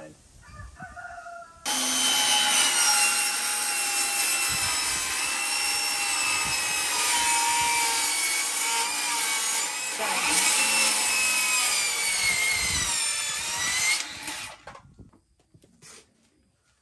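A circular saw cutting through wooden shelf boards. It starts abruptly about two seconds in and runs under load for about twelve seconds, its whine slowly sinking in pitch, with a brief dip and pickup around ten seconds in. It then cuts off and winds down.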